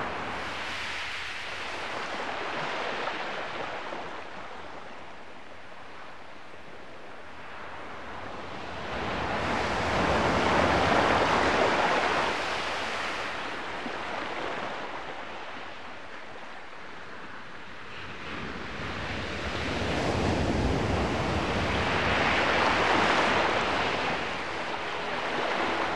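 Rushing noise that swells and fades in slow waves, peaking about every ten seconds, much like surf breaking on a shore.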